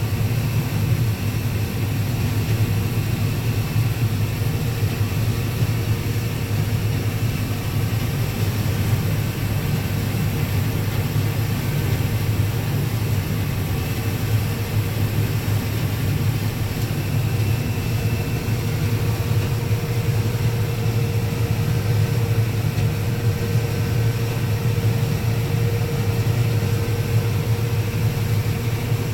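Combine harvester running steadily while shelling corn: a constant low drone with a faint steady whine over it.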